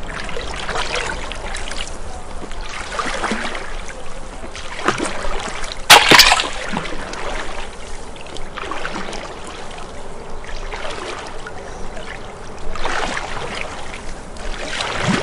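Water splashing and sloshing as people wade and swim in a shallow, muddy river, in irregular swells. A sharp, loud knock stands out about six seconds in.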